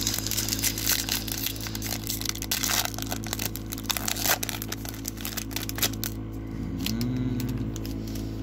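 Baseball trading cards being handled and shuffled: a dense run of rustling, crinkling clicks that thins out after about six seconds.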